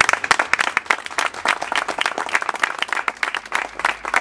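A small group of people applauding, their individual handclaps distinct.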